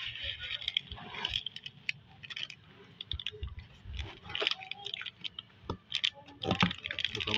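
Loose polystyrene foam beads rustling and crackling as hands dig through them, then a plastic chocolate-bar wrapper crinkling as it is lifted out and turned over in the fingers.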